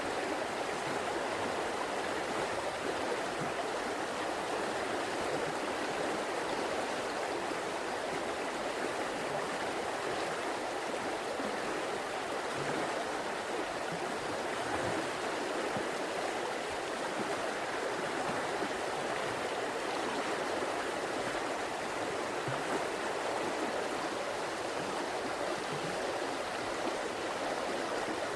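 River water flowing and babbling over stones, a steady rushing with no breaks.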